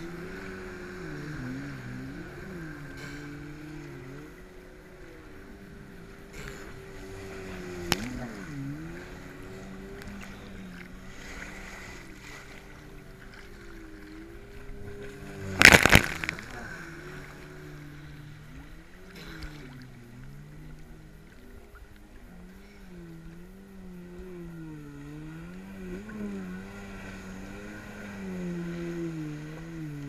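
Jet ski engines running, their pitch rising and falling with the throttle, over water sloshing at a camera at water level. About halfway through, a loud splash of spray hits the camera.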